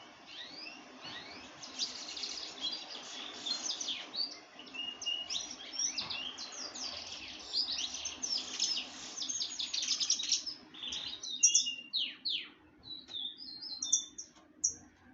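Songbirds singing in a dense, fast stream of overlapping high chirps and trills, which thins out to scattered separate notes for the last few seconds. A faint steady low hum runs underneath.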